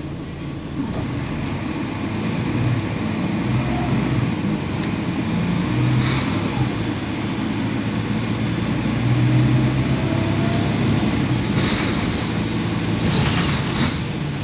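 Cabin noise of a Mercedes-Benz OC500LE single-deck bus under way: a low engine drone with road and tyre noise, growing louder over the first few seconds as the bus picks up speed. Several short hissing bursts come through partway in and again near the end.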